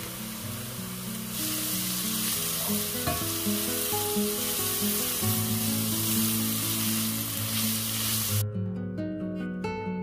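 Grated carrot and onion sizzling in hot oil in a pot as they are stirred with a wooden spatula. The sizzle grows louder a little over a second in and cuts off abruptly near the end.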